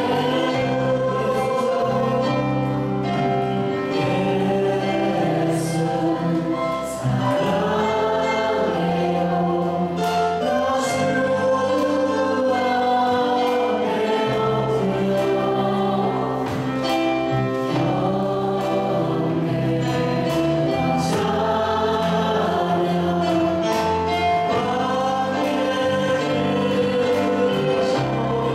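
Church praise team singing a Korean worship song into handheld microphones, with a man and a woman on lead vocals, over continuous instrumental accompaniment.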